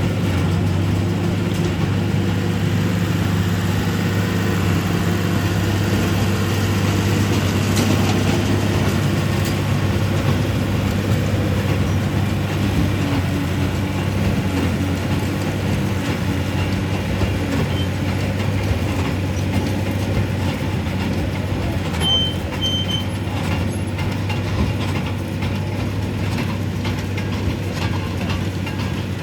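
Tractor and sugarcane trash baler running in the field: a steady, continuous low engine drone with machinery noise, holding an even level throughout.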